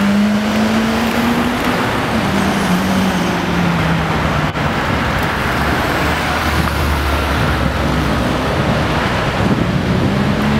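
Cars and police motorcycles of an escort convoy passing on a city street: steady traffic noise with engine hum, and a deeper engine drone in the second half.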